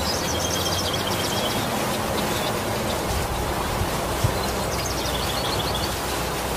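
Steady rain falling on broad tropical leaves and foliage. A bird twitters in quick, high trills, once near the start and again about two-thirds of the way through.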